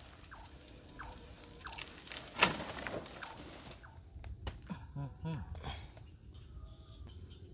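Steady high trill of crickets under quiet handling noises, small knocks and rustles, with one brief louder rustle about two and a half seconds in.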